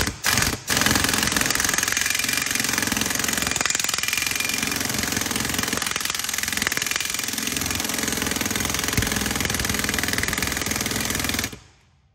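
Pneumatic impact wrench hammering on the stub-axle nut, drawing a new wheel bearing onto the stub axle. It gives a few short bursts at first, then runs in one long, steady rattle and stops about a second before the end. The gun is fed by an old compressor that has little air to give.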